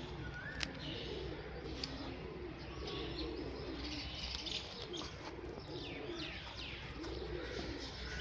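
Pigeons cooing over and over in low, wavering phrases, with higher bird chirps and a few sharp clicks mixed in.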